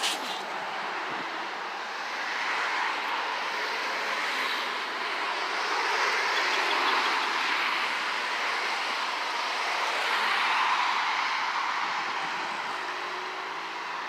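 Derecho wind blowing hard, a continuous rushing noise that swells and eases in gusts about every three to four seconds. A sharp click sounds at the very start.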